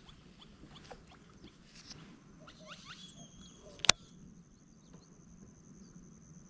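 Scattered short chirping animal calls over a steady high, thin insect-like tone that starts about halfway through, with one sharp click about four seconds in.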